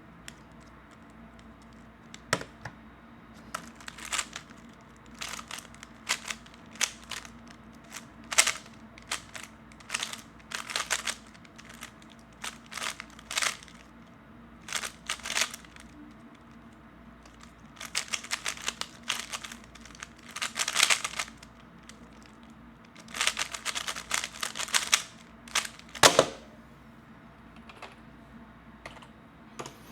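Plastic 3x3 speed cube being turned fast by hand: rapid clacking of the layers in bursts of a second or two with short pauses between them, stopping about four seconds before the end.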